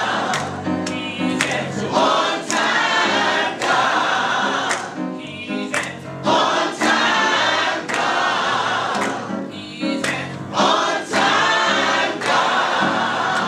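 Church choir singing a gospel song, with a woman singing lead.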